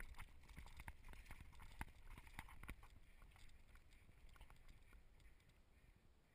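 Near silence, with faint scattered clicks and a low rumble that fade out after about three seconds.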